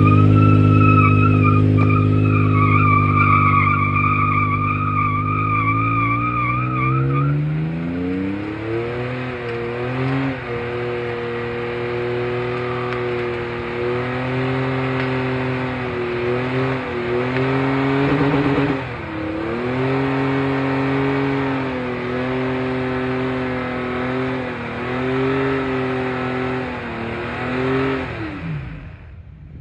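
Toyota Tacoma pickup doing a burnout: its engine is held at high revs while the rear tyres spin on the pad. A high, wavering tyre squeal runs through the first several seconds. The engine revs climb further about eight seconds in and stay up, dipping briefly now and then, until the throttle is let off near the end.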